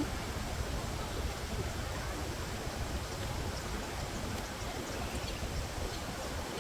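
Steady rushing background noise, heaviest in the low end, with no distinct events.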